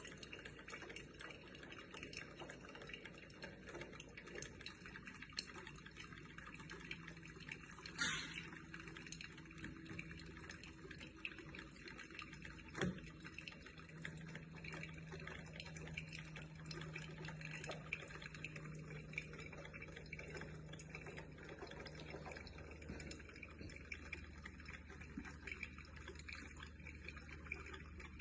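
Electric drip coffee maker brewing, faint dripping and trickling of coffee into the carafe. A faint low hum comes in for a while mid-way, with a short sharp noise about eight seconds in and a click about thirteen seconds in.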